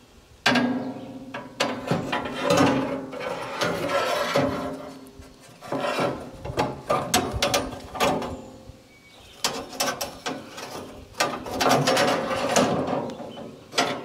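Band sawmill's blade-change mechanism clattering and whirring in three spells, as metal parts are worked while a new band blade is fitted.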